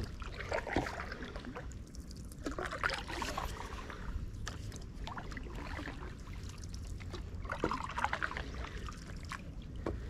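Stand-up paddleboard paddle dipping and pulling through still canal water, with a splash and a trickle of drips at each of three unhurried strokes a few seconds apart.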